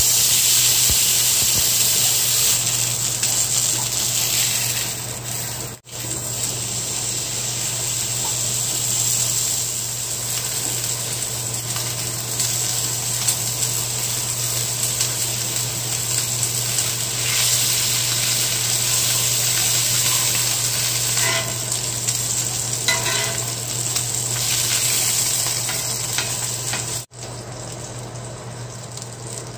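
Ribeye steak searing in oil in a cast-iron skillet, sizzling steadily over a low hum. The sound cuts out briefly twice, about 6 seconds in and near the end.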